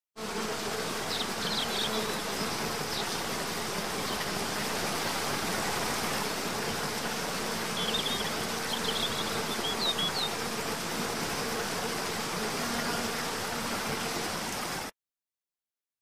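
Rushing water of a waterfall, an even noise, under a steady low hum. Short high bird chirps come about a second in and again around eight to ten seconds in.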